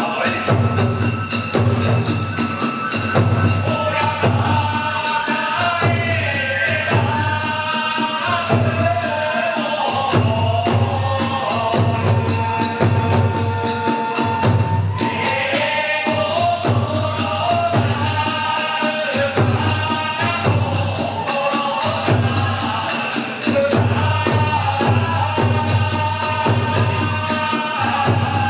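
Kagura hayashi: a big drum beating steadily, with metallic hand cymbals and a wavering melody over it.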